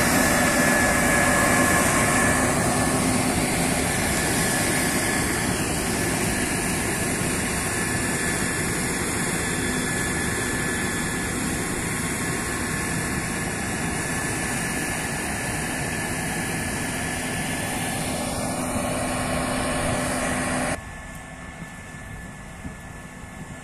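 Case IH Axial-Flow 6150 combine harvester running under load while harvesting, a steady engine and threshing drone with a steady high whine over it. About 21 s in it drops suddenly to a quieter, more distant level.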